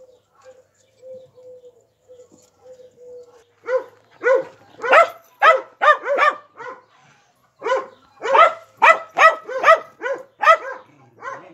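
A dog barking in two rapid runs of short, fairly high-pitched barks, about two a second, starting about four seconds in, after a few seconds of a faint steady whine.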